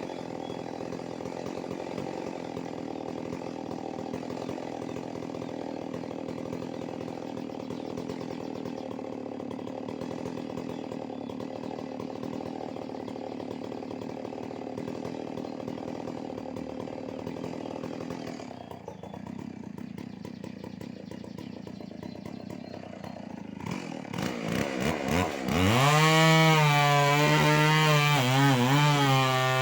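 Stihl MS 381 two-stroke chainsaw running steadily. About two-thirds of the way through it drops back, then revs up to full throttle and becomes much louder, its pitch wavering up and down.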